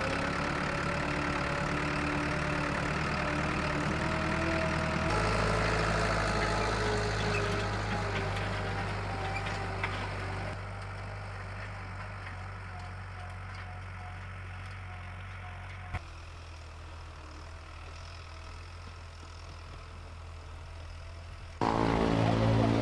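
Farm tractor's engine running, its pitch drifting up and down, with sudden shifts in level and tone about five, ten, sixteen and twenty-one seconds in.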